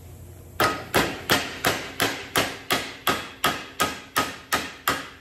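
Hammer blows on a sheet-metal bracket, hammering a bend into it by hand. There are about thirteen even strikes at roughly three a second, starting just over half a second in, and each strike gives a short metallic ring.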